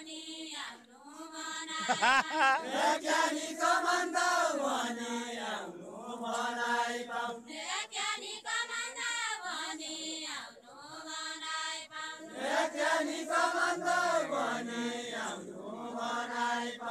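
A group singing a Deuda, the far-western Nepali folk song, together in long, drawn-out phrases of a few seconds each with short breaks between them.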